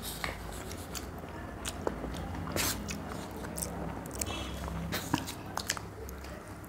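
Close-miked eating: irregular wet chewing and lip smacks from people eating rice and spicy chicken curry by hand, with many short sharp clicks.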